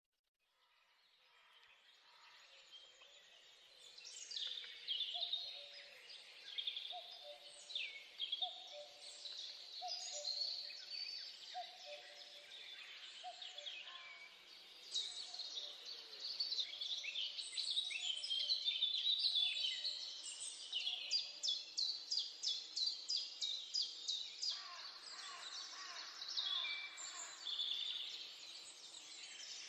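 Recorded nature soundscape of many birds singing and chirping together, fading in from silence over the first few seconds. A low call repeats at a steady pace beneath the songs for several seconds in the middle. Later comes a fast run of evenly repeated notes.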